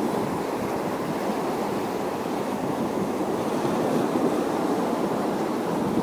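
Steady wash of water at the shore, with wind on the microphone.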